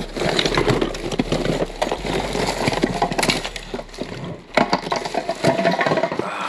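Hands rummaging through a plastic storage bin of remotes, cords and small electronics: a steady clatter of hard plastic items knocking together, mixed with plastic bags rustling.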